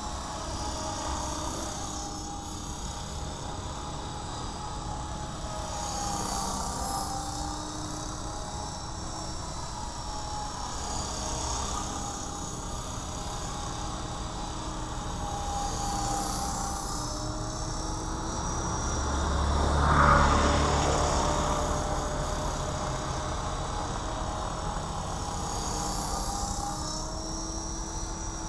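Align T-REX 500 electric RC helicopter flying figure-eight passes. The whine of its motor and rotor blades rises and falls in pitch and loudness with each pass, about every five seconds. It is loudest on a close pass about twenty seconds in.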